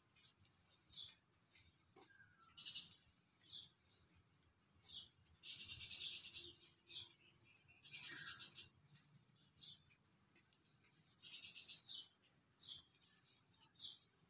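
Small birds chirping faintly: short high chirps about once a second, with three longer rapid chattering trills.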